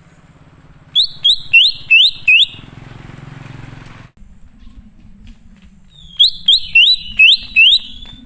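Leafbird (cucak ijo) calling: two phrases of five loud, quick, rising whistled notes, the first about a second in and the second near the end.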